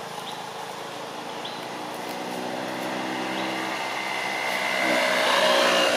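A motor vehicle's engine passing along the road, growing steadily louder over the last few seconds.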